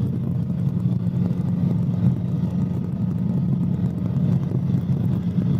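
Cabri G2 helicopter in cruise, its four-cylinder Lycoming piston engine and rotors making a steady low drone, heard through the headset intercom.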